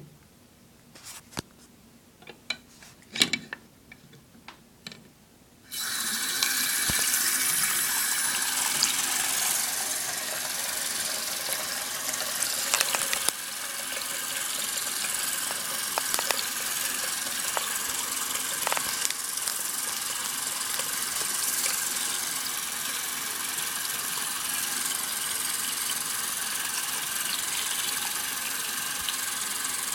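A few light clicks and knocks, then about six seconds in a bathroom sink faucet is turned on and water runs steadily from the tap into the basin.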